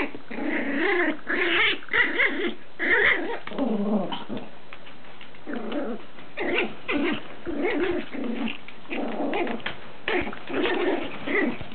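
Chihuahua puppy play-growling and grumbling in short, irregular spells while it worries a toy.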